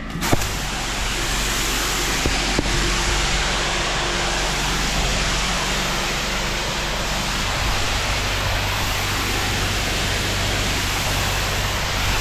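Pressure washer lance spraying water onto a tarmac driveway to rinse it: a loud, steady hiss of spray that starts suddenly just after the trigger is pulled, over the low, steady hum of the washer's engine.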